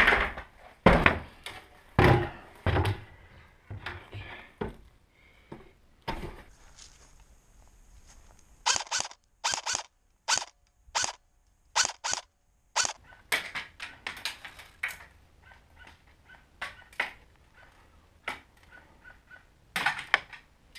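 A string of irregular sharp knocks and thuds, heavier and closer together for the first few seconds, then sparser and sharper clicks after a short lull.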